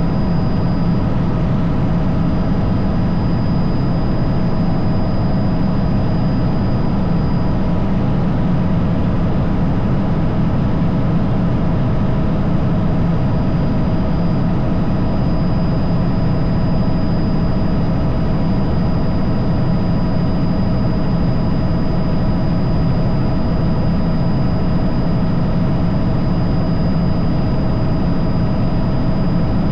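Helicopter in flight heard from on board: a steady, loud drone of turbine engine and rotor, a low rumble with a few thin whining tones held over it.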